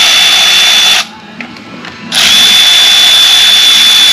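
Cordless power tool's motor running in two steady runs, a high even whine over a hiss, undoing the bolts that hold the top cover on a hydrostatic transaxle. The first run stops about a second in; after a short pause the second starts about two seconds in.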